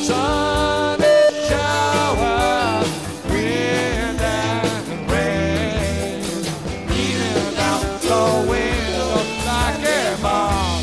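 Live rock band playing in a concert recording: a lead line that bends up and down over a steady bass.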